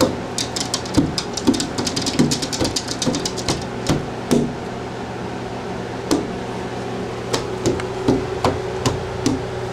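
A small child's open hand slapping and patting a glass window pane, making irregular knocks. The knocks come in a quick run through the first few seconds and are sparser later.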